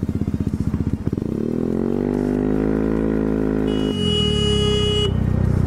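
Yamaha Zuma 125 scooter's single-cylinder engine running with an even pulsing beat, then rising smoothly in pitch as the scooter accelerates. About four seconds in, a steady high-pitched tone sounds over it for about a second and a half.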